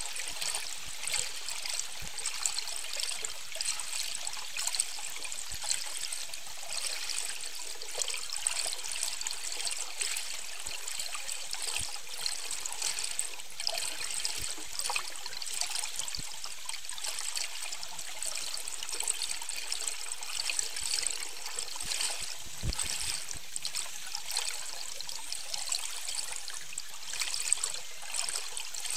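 Underwater water noise heard through the submerged boat camera's microphone: a steady crackling hiss with many faint, scattered clicks and occasional soft knocks.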